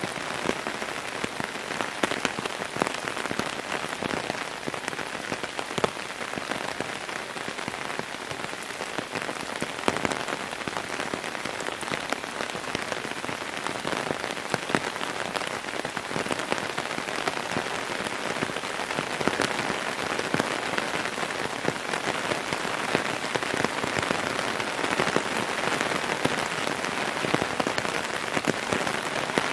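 Heavy rain falling steadily on a wet wooden deck and gravel ground, an even hiss dotted with the sharp splashes of many separate drops.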